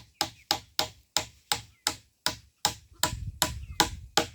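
Hammer blows on wood, a steady run of about three strikes a second, each with a short ring. A low rumble joins about three seconds in.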